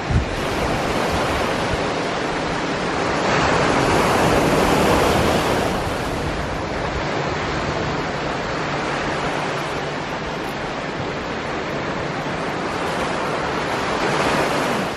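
Small surf breaking and washing up a sand beach, swelling louder about three to six seconds in and again near the end, with a brief knock at the very start.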